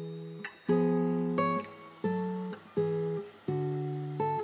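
Background music: a guitar strumming chords, a new chord struck about every three-quarters of a second and fading between strokes.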